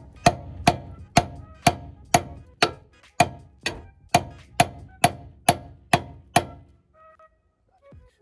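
A big hammer striking metal on a car's suspension, about fourteen hard blows at roughly two a second, each with a short metallic ring, stopping about six and a half seconds in.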